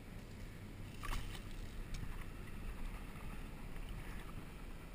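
Low rumbling wind noise on the microphone with water sloshing in the shallows, and a sharp knock about a second in followed by a lighter click.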